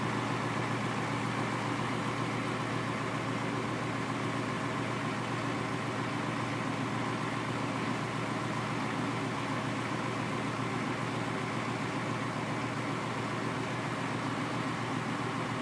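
Semi tractor's diesel engine idling steadily.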